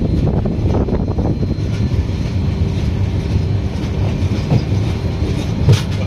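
Passenger train coaches running on the rails: a steady rumble of wheels and bogies with faint clickety-clack over the rail joints, and one sharper knock near the end.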